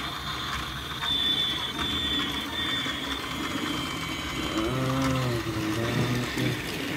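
Battery-powered toy train's small electric motor and plastic gears whirring, with a steady high whine. A brief low voice-like hum comes in about five seconds in.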